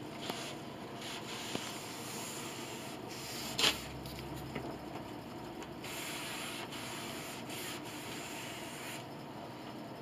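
A rag rubbing a thin wash coat of shellac onto a wooden grand piano soundboard, a steady swishing that swells and fades with each stroke. A sharp knock about three and a half seconds in is the loudest moment, with a few lighter taps around it.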